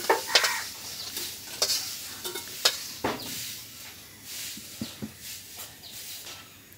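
Fried potato pieces tumbling out of a hot wok into a steel bowl. A handful of sharp metallic clinks and scrapes, mostly in the first half, sound over a light sizzle of hot oil.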